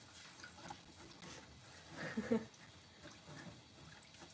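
A person's short nasal vocal sound, like a snort or sniffle, about two seconds in, otherwise quiet.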